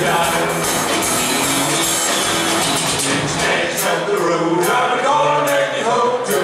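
Live country-rock band playing with a singer's voice over guitars and drums. About halfway through, the low end drops away, leaving the voice over sharp, even beats about every 0.8 seconds.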